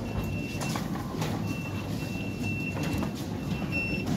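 Electronic beeping from London Underground ticket barriers: one high, steady tone repeating in short and longer pulses as passengers pass through. Under it runs a low rumble of the busy ticket hall, with a few sharp clicks and knocks.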